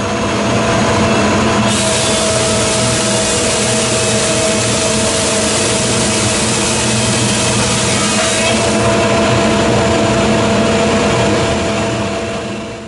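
Grizzly G01021X2 15-inch planer with a helical carbide cutter head running steadily and planing a rough oak board. A louder hiss from the cut comes in about two seconds in and eases off near nine seconds, as the board passes through the cutter.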